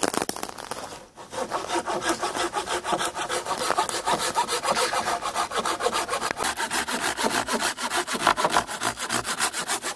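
Hand saw cutting through a log for firewood, with quick, even back-and-forth strokes that start about a second in and keep going.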